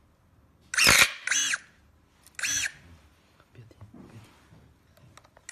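Cordless electric pruning shears working in three short motor whirs, the blade closing and reopening, with a sharp crack about a second in as it cuts through a branch. Faint handling noises follow.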